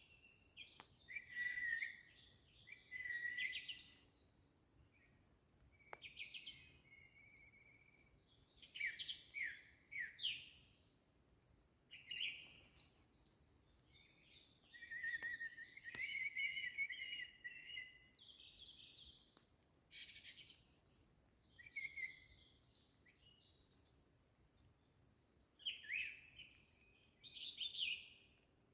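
Nightingale singing: a string of separate phrases, each a second or two of rapidly repeated notes and whistles, with short pauses between.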